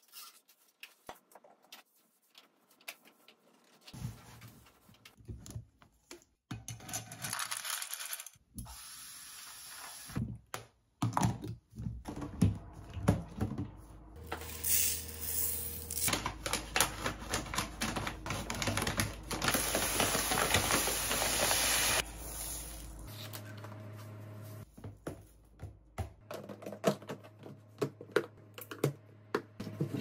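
Dry rice grains rattling and pattering into a clear plastic rice storage box, a rapid stream of small clicks, with knocks from the plastic lid and box being handled.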